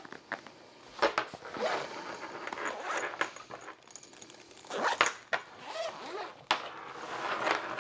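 A soft fabric zippered organizer case being zipped and handled on a table: zipper rasping, fabric rustling and scuffing, and a few sharp knocks as it is flipped over and set down.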